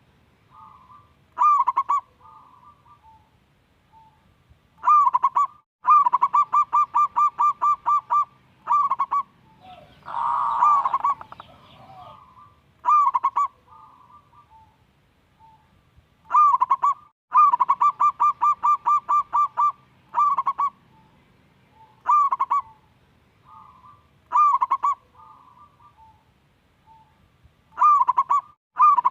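Zebra dove (perkutut) singing: repeated phrases of one or two opening coos followed by a rapid run of short staccato coos, about four a second, with softer coos in between. About ten seconds in, a rougher, louder call lasts a little over a second.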